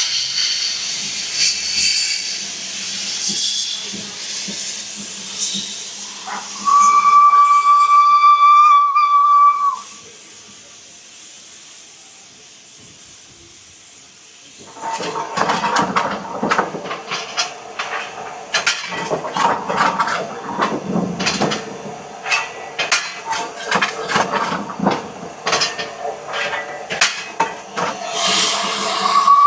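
Steam hissing, then a steam whistle sounds one steady note for about three seconds. After a quieter spell, irregular clattering and hissing carry on, and the whistle starts again right at the end.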